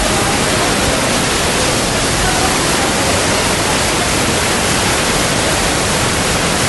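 Muddy floodwater of the flooded Swat River rushing past in a loud, steady torrent.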